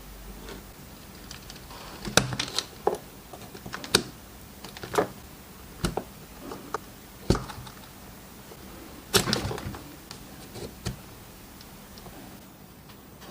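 Irregular sharp clicks and knocks of small hard parts being handled, turned over and set down on a work surface, a dozen or so spread over about eleven seconds, the loudest about two seconds in and about nine seconds in.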